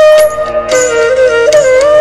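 Keyless side-blown metal flute, bansuri-style, playing a slow film-song melody: a held note that slides down to a lower note about a second in and climbs back near the end.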